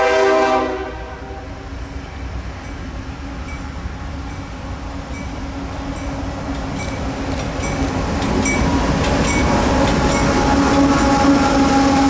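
A CSX diesel freight locomotive's horn chord ends about a second in. The diesel locomotives' engines then run and rise in level, with a steady drone, as the train draws up and passes close by. Short, regular dings come about once a second through the rest.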